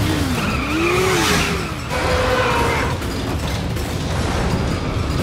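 Cartoon action sound effects: a whooshing sweep about a second in and several rising-and-falling mechanical whines over a heavy, steady low rumble.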